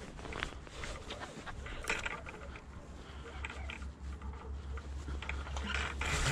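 Faint rustling and small clicks of a gloved hand and jacket sleeve handling a fishing line at the quay edge, over a low steady rumble through the middle.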